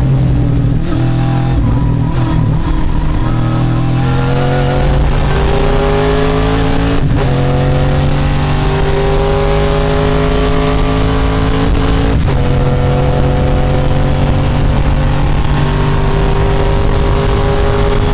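Trans Am TA2 race car's V8 engine heard from inside the cockpit. The revs waver for the first few seconds, then the engine accelerates with its pitch climbing steadily. It upshifts twice, with sudden drops in pitch about 7 and 12 seconds in, and climbs again after each shift.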